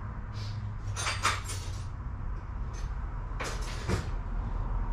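Irregular knocks and clatters of hand tools being handled, louder in a cluster about a second in and again near four seconds, over a steady low hum.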